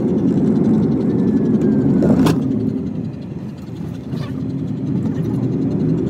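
Steady road and engine noise of a moving Hyundai Grand i10 heard inside the cabin, a low rumble with a couple of short knocks about two and four seconds in.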